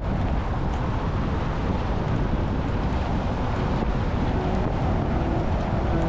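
Steady road and wind noise from a car driving on a wet road, with wind rumbling on the microphone.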